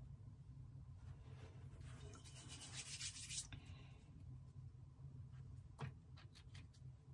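Faint rubbing and scratching of a hand close to the microphone, loudest about two to three seconds in, followed by a few light taps near the end, over a low steady hum.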